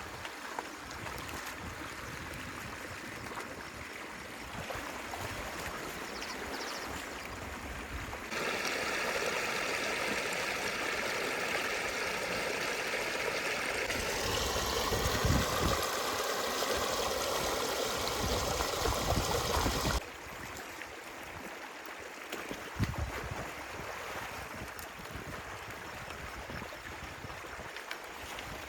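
Stream water running and gurgling. About a third of the way in it turns to a louder, fuller rush, which stops abruptly about two-thirds through, with a few short low thumps.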